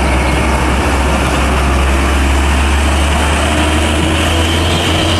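Hino box truck's diesel engine running with a steady low drone as the truck rolls slowly past, over a constant rushing noise.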